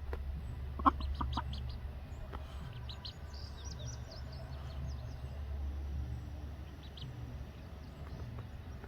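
Mother duck on her nest giving a few short clucking calls about a second in, with high thin peeps through the middle, over a steady low rumble.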